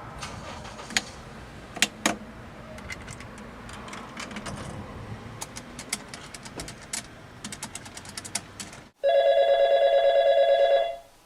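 Scattered light clicks and taps, then about nine seconds in a telephone starts ringing: one warbling ring lasting about two seconds.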